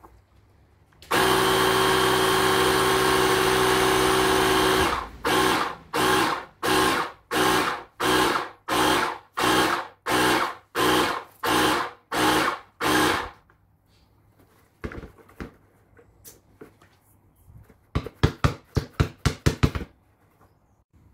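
Parkside PKA 20-LI-A1 cordless compressor running while it pumps up a basketball: a steady run for about four seconds, then short on-off bursts at about two a second. Near the end, a quick run of about nine thumps.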